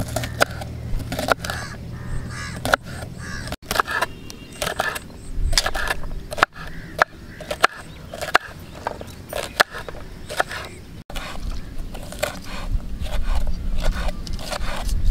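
Kitchen knife chopping green beans, then green bell pepper, on a wooden cutting board: a run of quick, sharp knocks with brief breaks between bursts.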